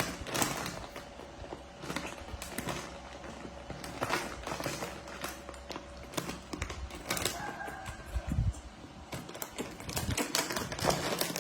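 Irregular small clicks and taps, with a faint steady hum beneath and a single low thump about eight seconds in.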